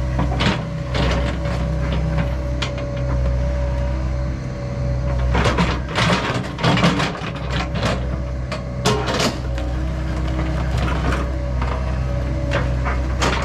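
John Deere 85G excavator's diesel engine running steadily under working load, with a steady whine over it. Irregular clanks and knocks from the machine working the dirt and stump come through, thickest about halfway through.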